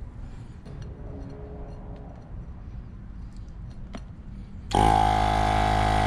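Faint clicks of hands working at the wheel's valve, then about three-quarters of the way through a portable electric tire inflator switches on suddenly and runs steadily, pumping air into a tubeless minibike street tire to seat its bead.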